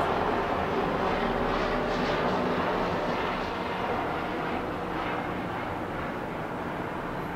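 Steady distant engine rumble, slowly fading.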